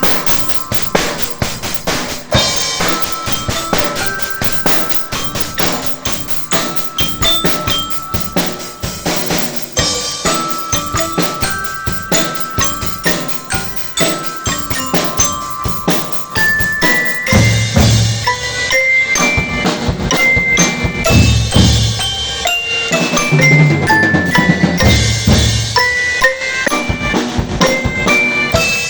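Drum band music: a glockenspiel-like bell melody over fast, continuous snare drumming, with heavy bass drum beats joining about two-thirds of the way in.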